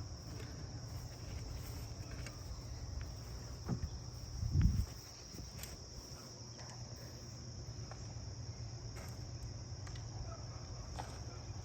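Steady chorus of insects, typical of crickets, with a low hum underneath. A click comes a little before four seconds in, followed by a louder low thump just after.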